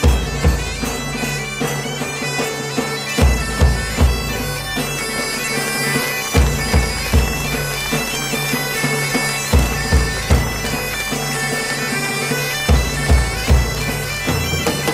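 Bagpipe music: the pipes play a tune over a steady drone, with drum beats coming in short groups every few seconds.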